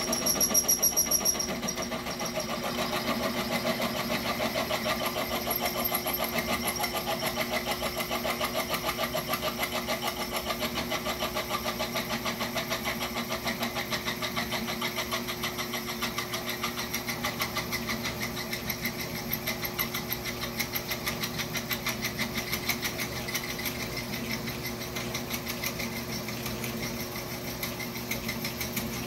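Sherline mill's motor running steadily with a twist drill cutting into a cast linkage part, giving a fast, even chatter over the motor hum. The bit is enlarging a worn, oblong hole and is now cutting all the way around it.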